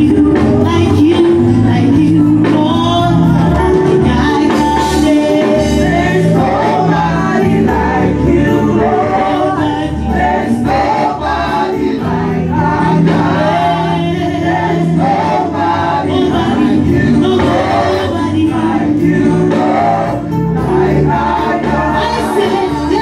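Gospel music with choir singing over a steady beat.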